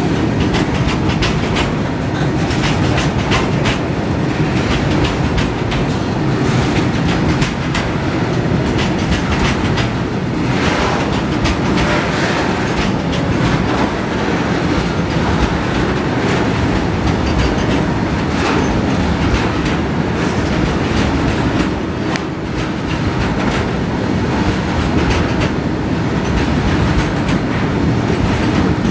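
Freight train of BTPN tank wagons rolling past close by: a steady, loud rumble with a rapid clatter of wheels over the rail joints.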